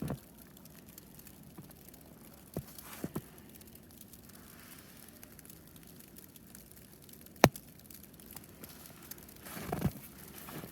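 A few slow, irregular crunching steps in deep snow over a quiet forest hush, with one sharp snap about seven and a half seconds in.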